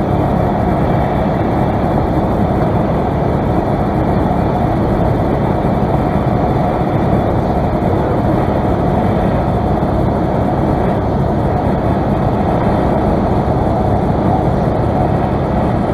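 Steady propeller-engine and airflow noise inside the cockpit of a small single-engine light airplane in flight.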